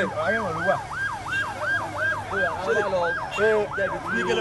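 Fire engine siren sounding in a fast yelp, its pitch sweeping down and back up between three and four times a second.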